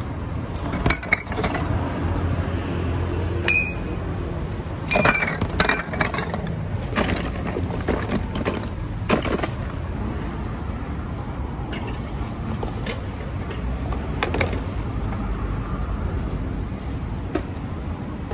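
Dishes and utensils clinking at a ramen stall: a string of sharp clinks, frequent in the first ten seconds and then only now and then. A steady low rumble of street traffic runs underneath.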